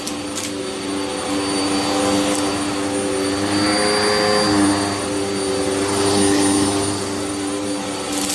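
Hoover vacuum cleaner running over a rug: a steady motor hum with airflow rush that swells and dips a little in pitch as the machine is pushed and pulled over the pile.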